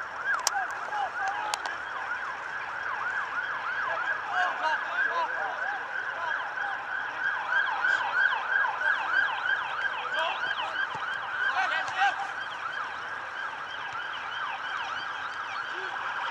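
Emergency-vehicle siren on a rapid yelp, its pitch sweeping up and down several times a second. A few sharp knocks sound near the start.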